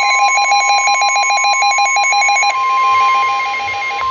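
Several NOAA weather radios alarming at once: the steady warning alarm tone near 1 kHz under the radios' own rapid, warbling electronic beeps. About two and a half seconds in, the fastest beeping stops, and the steady tone carries on with a slower beep.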